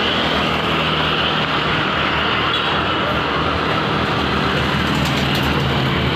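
Tour bus engine running steadily as the bus passes, over continuous road traffic noise.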